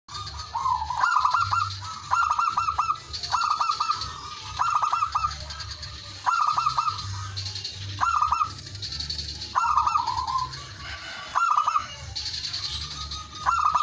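Male zebra dove (perkutut) cooing: about nine short rolling phrases of rapid staccato notes, one every second or two.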